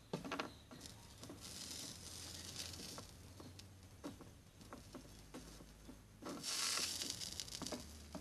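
Electric soldering iron tip working molten solder on a wooden board: two spells of hissing sizzle, one starting about a second and a half in and a louder one a little past six seconds, among light taps and clicks of the tip.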